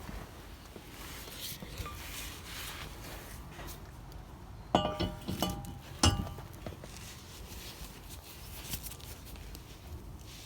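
New brake disc clanking against the wheel hub as it is fitted: two sharp metallic clanks a little over a second apart, each ringing briefly like a struck plate.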